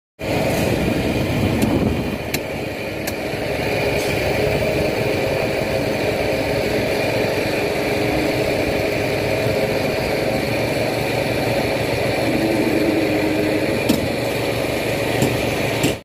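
Heavy diesel truck engines of a concrete mixer truck and a concrete pump truck running steadily as they stand ready to unload concrete, with a few light knocks.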